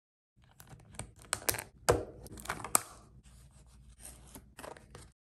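Small printed paper pouch of toy packaging being pinched open by fingertips: close crinkling and rustling with a series of sharp little snaps and clicks, loudest in the first half, softer near the end.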